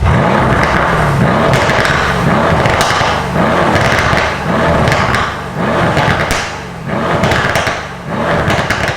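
Mercedes-Benz C63 AMG's twin-turbo V8 revved in quick repeated blips in Sport Plus mode through its standard non-flap exhaust, each rev falling away with sharp exhaust pops and crackles on the overrun: the frequent popping that the updated engine software brings.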